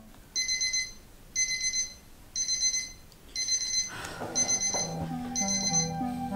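Electronic alarm clock beeping in rapid buzzing bursts, about one a second. Background music with low notes comes in about four seconds in.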